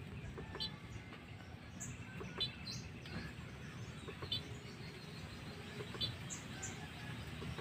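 Birds chirping faintly: a short, fluttering high call that repeats about every two seconds, with a few higher chirps in between, over a low steady outdoor background noise.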